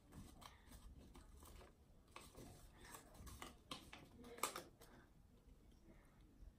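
Faint paper rustles and light clicks as a folded paper fortune teller (cootie catcher) is handled and a flap is lifted to read the fortune, with one louder rustle about four and a half seconds in.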